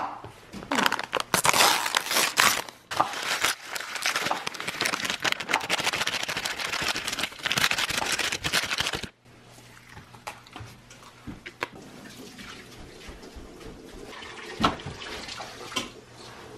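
Paper packet of instant oatmeal being handled and torn, then dry oat flakes poured into a ceramic bowl with a dense, hissing rustle. It cuts off abruptly about nine seconds in, followed by quieter kitchen handling clicks.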